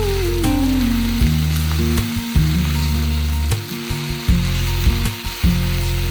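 Food sizzling as it fries in a hot pan, a steady hiss, with background music underneath.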